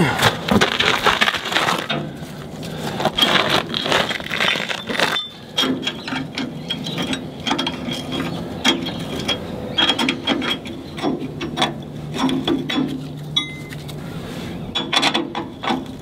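Ratchet spanner clicking in short runs as the nuts are tightened on the bolts that hold anode straps through a steel keel.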